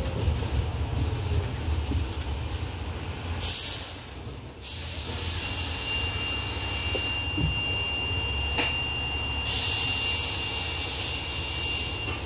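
Double-decker bus running slowly in traffic, heard from the upper deck: a steady low engine drone, with a sharp burst of air hiss about three and a half seconds in. After it comes a steady hiss with a thin high whine over it, getting louder about two-thirds of the way through.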